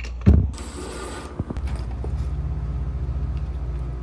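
A loud thump and a short hiss, then a click, followed by a steady low machine hum with a fast, even pulse.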